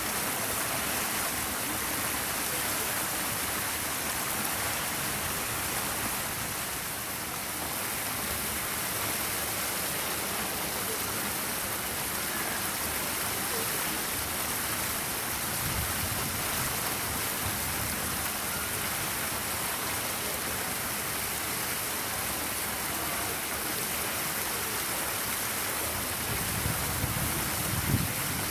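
Steady outdoor background hiss, strongest in the highest pitches, with brief low rumbles about halfway through and again near the end.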